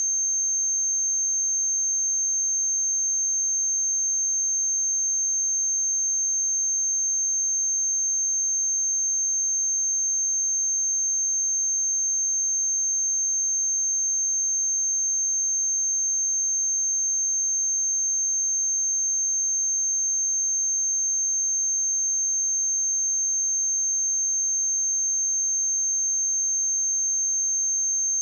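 A steady, unbroken 6347 Hz sine wave test tone: a single pure high-pitched whistle at constant level.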